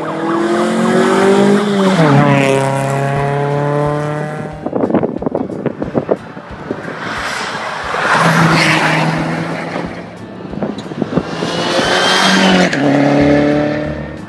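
Turbocharged rally cars, among them a Mitsubishi Lancer Evolution, accelerating hard past at speed one after another. Each engine note climbs and then drops as the car goes by, three times, and a burst of sharp crackles comes about five seconds in.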